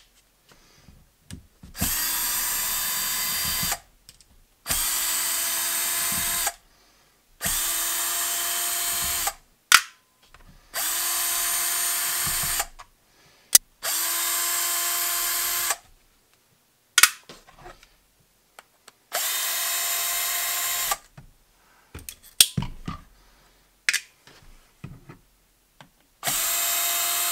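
Hilti cordless screwdriver backing screws out of a DeWalt impact driver's plastic housing: seven steady runs of about two seconds each at a constant pitch. Short clicks of screws and parts being handled fall in the pauses between runs.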